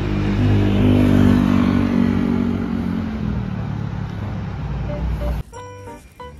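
Street traffic: a road vehicle's engine running close by, loudest about a second in and then slowly easing off, over the hiss of tyres and street noise. It cuts off suddenly near the end, giving way to soft background music.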